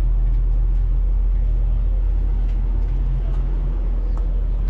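Steady low rumble of a car engine idling.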